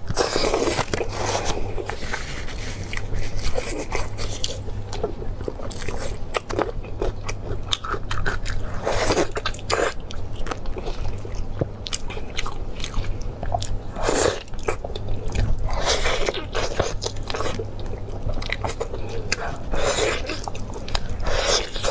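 Close-up biting and chewing of saucy braised sheep meat: wet mouth sounds with irregular sharp clicks and short bursts. A steady low hum runs underneath.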